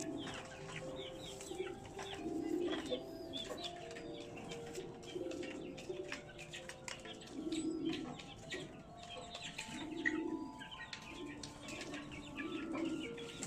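Domestic pigeons cooing, low coos repeating every second or two, over many short high bird chirps.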